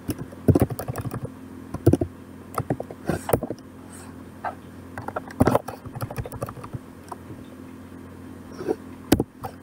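Computer keyboard being typed on in irregular bursts of key clicks, over a steady low hum.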